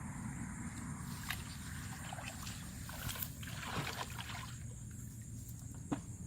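Water sloshing and splashing, loudest about three to four seconds in, over a steady low rumble, with a few sharp clicks or knocks.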